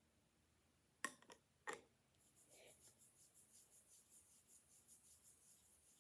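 Two sharp clicks about a second apart, then faint rhythmic rubbing, a few strokes a second, as a skincare product is handled and worked in by hand.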